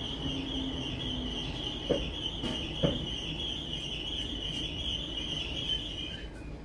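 Merseyrail electric train running over a low rumble with a steady high-pitched brake squeal that stops near the end. Two short knocks come about two and three seconds in.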